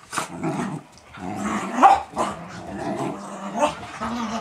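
Siberian Husky puppy and Beagle pup play-growling as they tug at a toy between them, with a short sharp bark about two seconds in.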